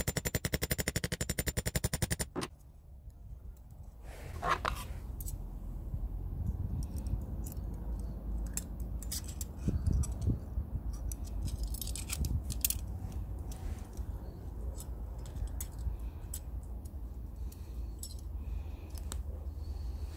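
Metal parts of an antique curling iron being handled and fitted together on a small steel anvil: scattered light clicks and clinks of metal on metal. It opens with a rapid, even train of clicks lasting about two seconds.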